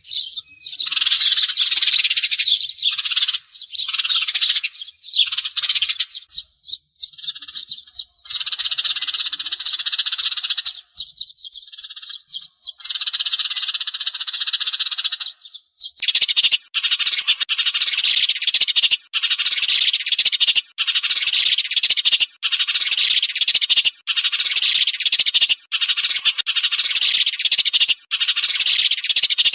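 Sparrows chirping and chattering densely. About halfway through it becomes a repeated chattering phrase broken by short gaps roughly every second and a half.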